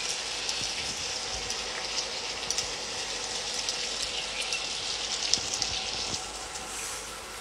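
Sticky soy-and-honey sauce sizzling in a frying pan of chicken wings: a steady hiss with scattered small ticks.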